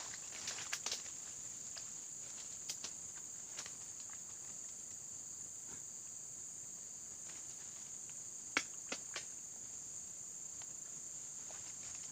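Insects droning steadily at a high pitch, with a few sharp clicks here and there, the loudest about eight and a half seconds in, followed quickly by two smaller ones.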